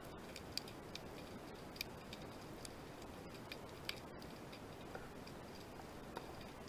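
Underwater ambience heard through a camera housing: a steady low water hiss with scattered sharp clicks and crackles, a handful of them louder and spaced about a second apart.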